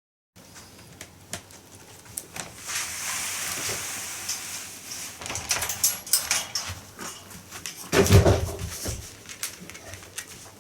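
Maltese dog moving about on a hard floor, with scattered light clicks and rustling. A louder bump comes about eight seconds in.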